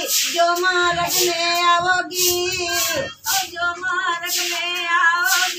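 Women singing an Awadhi dhobi geet folk song together, the voices holding long, wavering notes between short breaths.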